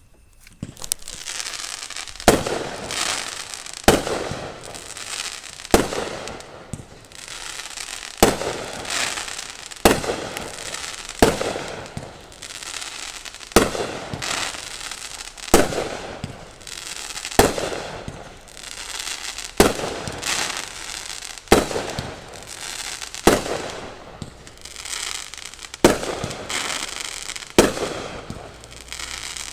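Fireworks going off in steady succession, a sharp bang about every one and a half to two seconds, each one trailing away with a crackling tail.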